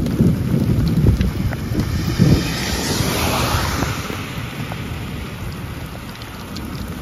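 Thunderstorm wind buffeting the microphone with a heavy low rumble, then a hiss of driving rain that swells about three seconds in and fades toward the end.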